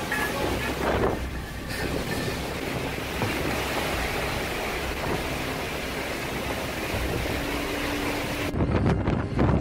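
Storm wind gusting hard and buffeting the microphone, a loud steady rushing noise. Near the end the sound changes abruptly to a lower rumbling.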